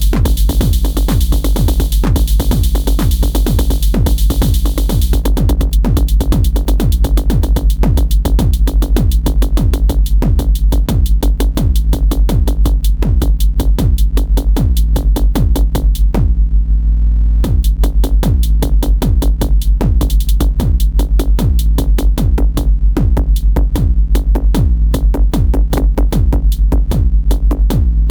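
Elektron Syntakt drum machine playing a steady, fast techno-style drum pattern of punchy kicks under busy hi-hats. The high percussion drops out briefly about halfway through, then the full pattern comes back.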